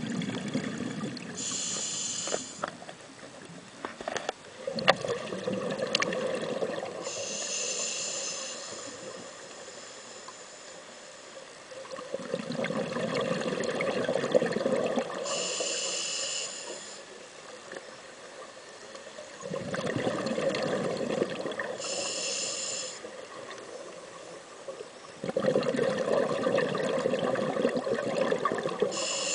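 Scuba diver's regulator breathing underwater: a short hiss with each inhale, then a longer rush of exhaled bubbles. About one breath every six to seven seconds, five in all.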